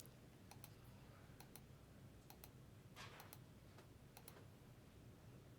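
Faint clicks of a computer mouse, a quick press-and-release pair about once a second, from repeatedly clicking to randomize a list.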